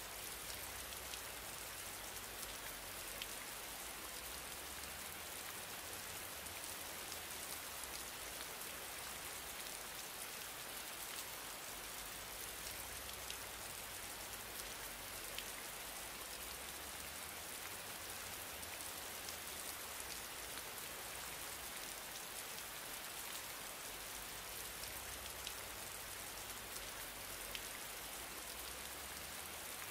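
A steady, even hiss with faint ticks scattered through it.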